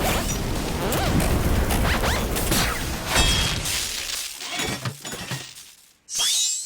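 Cartoon action sound effects: a dense run of crashing, shattering impacts and swooshes that fades away over the last few seconds, then a sudden loud swoosh with a rising whistle near the end.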